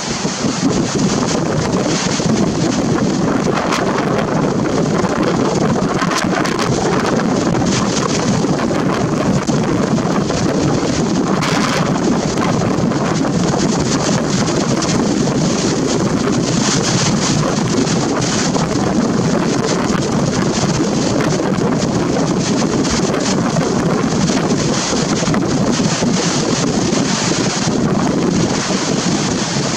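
Storm-force wind buffeting the microphone: a loud, steady rushing that surges in gusts, with one sharper gust about halfway through.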